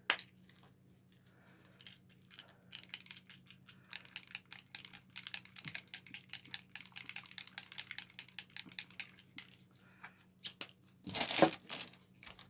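A stir stick clicking and scraping rapidly against the sides of a plastic cup as resin is mixed. A louder short rustle and knock comes about eleven seconds in.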